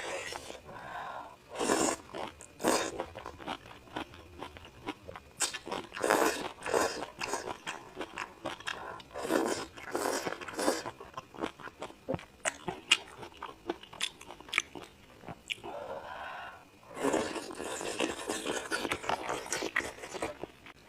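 Close-up eating sounds: crunchy bites and wet chewing of spicy hot pot food and snail noodles, with many quick clicks and several longer noisy bursts about a second long.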